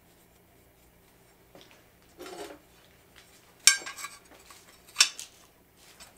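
Pieces of metal handled and knocked together: a dull knock about two seconds in, then two sharp metallic clinks about a second and a half apart as a cut steel bar and a metal square meet, with quieter handling rustle between.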